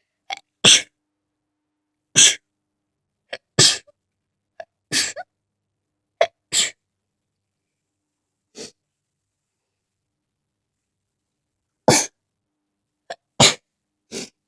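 A person sneezing over and over in a sneeze fit. Five loud sneezes come in quick succession, most with a short, sharp intake of breath just before, then a faint one. After a pause of a few seconds, three more follow near the end.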